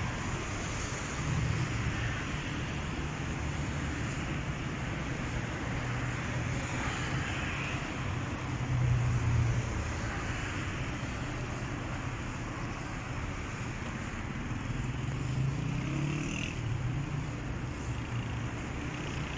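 City road traffic: a steady rumble of car engines and tyres, with a few cars passing closer and louder at times.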